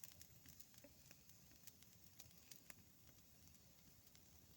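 Small wood campfire of dry birch twigs crackling faintly, with scattered irregular pops.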